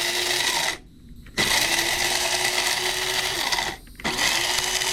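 Krups blade coffee grinder running in pulses, its motor spinning up with a rising whine each time, grinding dehydrated peppers and their seeds into powder. It stops briefly about a second in and again near four seconds, restarting each time.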